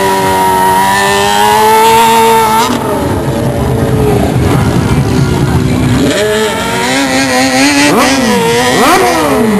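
An engine held at steady high revs for a few seconds, then cut off. Rough noise follows, and then the engine is revved repeatedly, its pitch rising and falling quickly several times near the end.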